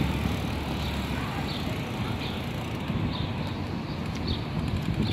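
Bicycle rolling over brick paving stones: a steady rumble from the tyres and the jolting frame, with faint short high chirps recurring under a second apart.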